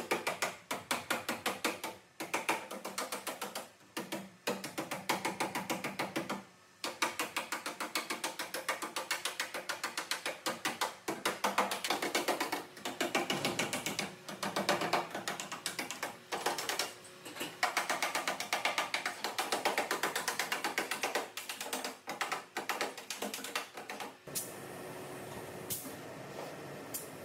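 Hand ratchet wrench clicking rapidly in repeated runs of strokes, with short pauses between runs. Near the end it gives way to a steady hiss of compressed air.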